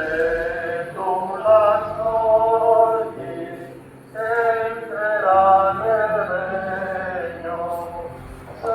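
Background music: long held sung notes, choir-like, over a steady bass line, with a short lull about four seconds in.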